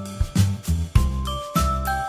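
Background music: a bell-like melody of short notes over a steady, repeating bass beat.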